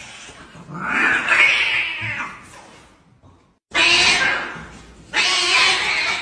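Cats fighting, yowling and screeching: one long screech about a second in, then after a short break two more loud bursts.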